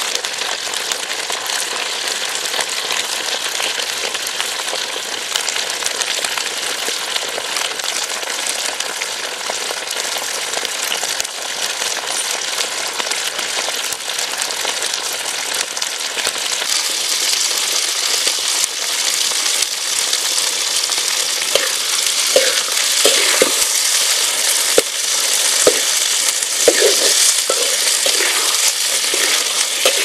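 Diving beetles frying in hot oil in a metal pan, a steady sizzling hiss that grows louder a little over halfway through. In the last several seconds a spatula stirs them, with short scrapes and knocks against the pan.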